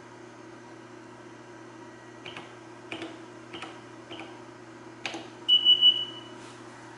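Data I/O 29B PROM programmer's keypad clicking under five key presses about half a second apart, then three quick high beeps from the programmer as it throws a 'repair required' error. A low steady hum runs underneath.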